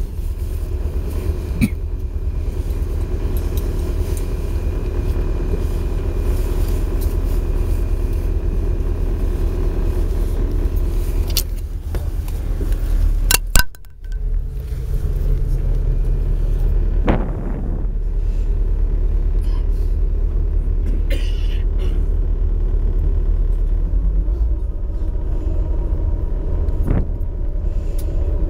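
Boat engine running at low speed, a steady low rumble, with water washing along the hull. A sharp knock comes about halfway through, followed by a brief dip in the sound.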